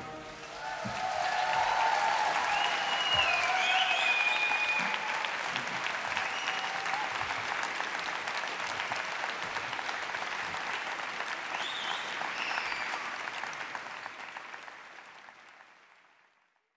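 Concert audience applauding and cheering, with a few whistles. The applause swells about a second in and fades out near the end.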